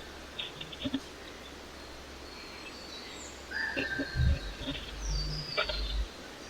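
Small birds calling, a held whistled note and several higher falling whistles, over scratching and a few low thumps from a bird moving about in a nest box.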